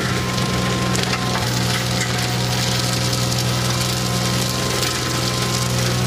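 Skid steer loader running a rotary grass-mower attachment through brush, its blades chopping and splintering stems and saplings over a steady machine drone.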